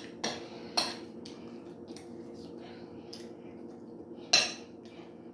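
Metal spoon scraping and clinking against a plate of rice while mixing in seasoned salt: a few scattered clinks, the loudest about four seconds in, over a steady low hum.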